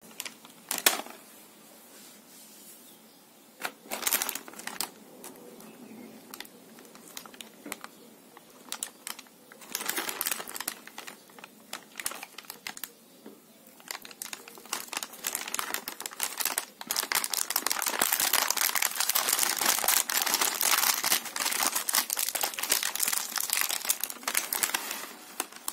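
Crinkling of a plastic snack packet being handled, in scattered short bursts at first, then dense and louder over the last third as the packet is opened.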